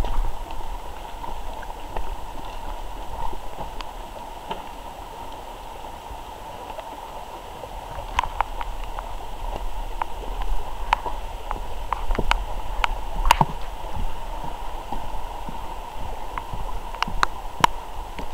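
Footsteps of a person walking on a wet forest trail: irregular crunches and knocks, sharper and more frequent from about halfway, over a steady rushing background.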